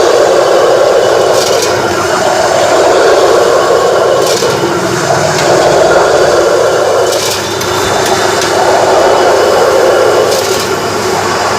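Commercial electric wet-grinding mill running steadily and loudly, grinding soaked rice with water into idli batter, with a few short scraping sounds a few seconds apart.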